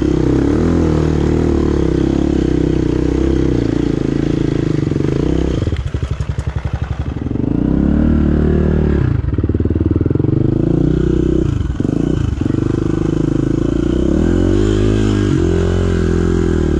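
Dirt bike engine revving hard under load up a slick, muddy hill climb, rising and falling with the throttle. It backs off briefly about six seconds in and again about twelve seconds in, then revs up again near the end.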